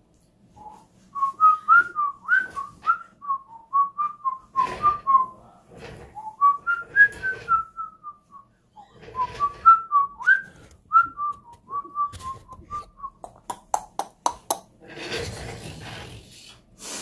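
A person whistling a tune by mouth: a series of short notes that slide up and down. Near the end the whistling stops, and there is a quick run of sharp clicks and then a brief rushing noise.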